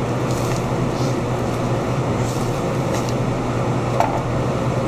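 Steady mechanical hum of room ventilation or air handling, with a low drone and an even rush, and a few faint light clicks over it.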